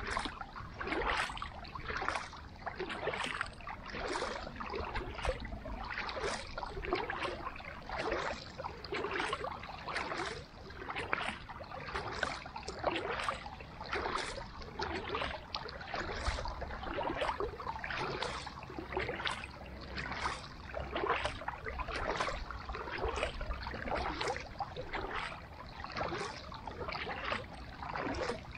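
Carbon kayak paddle dipping into lake water stroke after stroke: a steady rhythm of splashes and drips, with a low rumble underneath.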